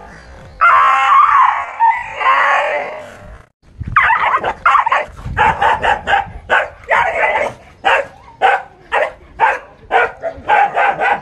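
A frightened dog cries out continuously for about three seconds, then barks rapidly, about three barks a second, at a toy tiger it takes for a threat.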